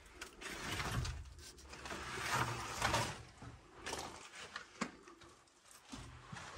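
Footsteps scuffing and crunching on a debris-strewn floor, irregular, with a sharp click a little before five seconds in.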